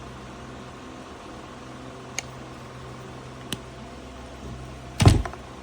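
Handling noise while wiring electronics by hand: two light clicks, then a louder knock near the end, over a steady low hum.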